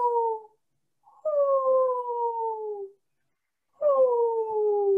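A woman's voice imitating an owl: long drawn-out "whoo" hoots that slide down in pitch, two full ones of about one and a half to two seconds each, after the tail of a previous hoot fades out at the start.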